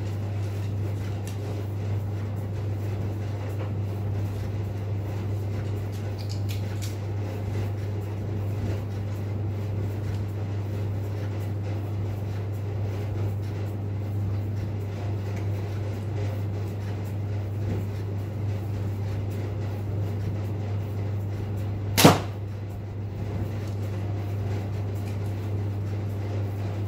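A single sharp crack about three-quarters of the way through: an arrow from a compound bow striking the target. A steady low hum runs underneath.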